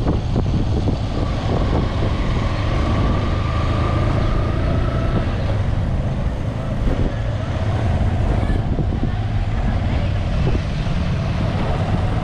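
Motorcycle engine running steadily while riding, a continuous low rumble with a faint whine rising slightly in the first few seconds.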